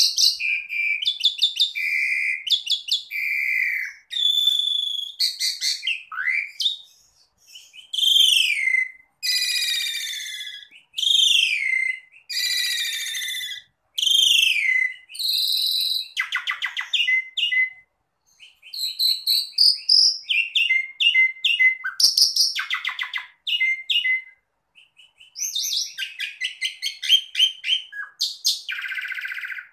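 Asian pied starling (jalak suren) singing a long, varied song: whistled notes, falling slurs and fast chattering trills in quick succession, with a few short pauses.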